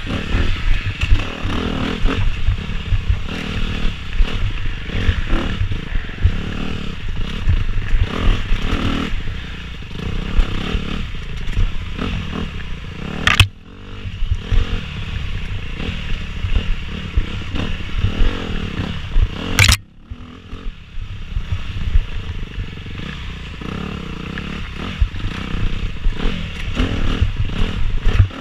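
Dirt bike engine revving up and down as it is ridden hard through a tight woods trail, with the bike clattering over the rough ground. Two sharp knocks, about thirteen and twenty seconds in, are each followed by a short dip in the engine noise.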